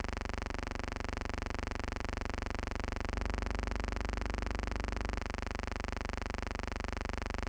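Steady electrical buzz with a fast, even flutter, the background noise of an archival film soundtrack. It gets a little fuller in the low end between about three and five seconds in.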